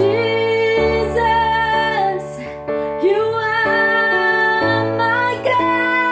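A woman singing a slow, emotional song with piano accompaniment, holding long notes that waver in pitch.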